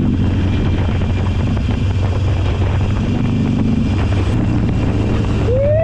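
Motorcycle engine running steadily while riding, with wind rushing over the microphone. Near the end a brief rising-then-falling pitched sound cuts in over it.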